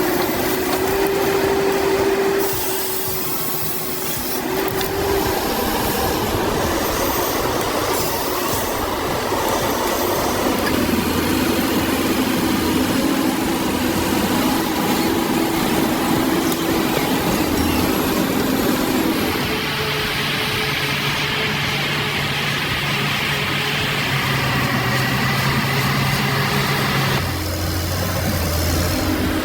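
Heavy forestry machine's engine running steadily under load, its pitch shifting about two-thirds of the way through and again near the end.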